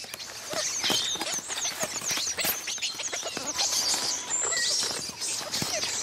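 Dry leaf litter crackling and rustling under young squirrel monkeys scampering and wrestling, with a run of short high-pitched squeaks and chirps from the monkeys.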